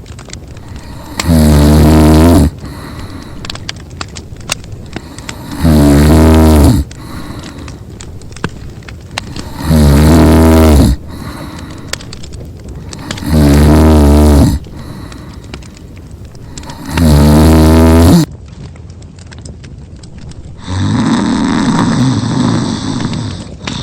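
Exaggerated cartoon snoring: a deep, wavering snore about a second long, repeated five times about every four seconds, then a longer, rougher sound of a different kind near the end.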